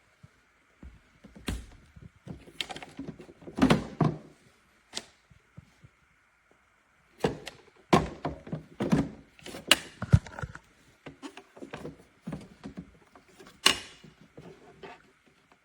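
Handling noise: a series of knocks, clunks and clicks from hard objects being moved and set down, in two clusters with a short pause between them and a sharp click near the end.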